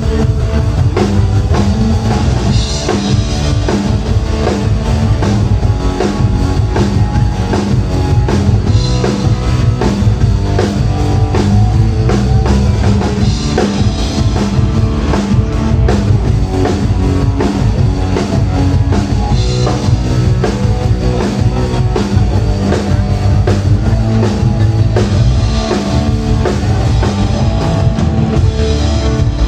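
A band playing loud rock music live, with a drum kit and guitar.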